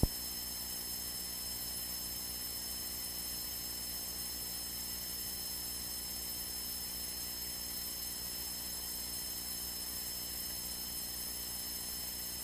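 Steady electrical hum with a faint high whine and light hiss on an aircraft's wired radio/intercom audio feed while the radio channel is idle, following a short click at the very start.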